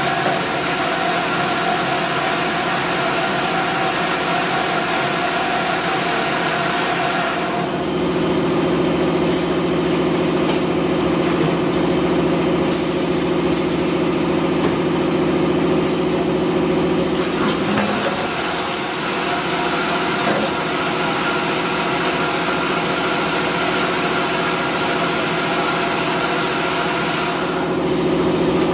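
5-gallon bottle rinsing, filling and capping machine running: a steady mechanical hum with a hiss above it. The hum changes pitch and tone about seven seconds in, again around the middle, and near the end, as the machine moves through its stages.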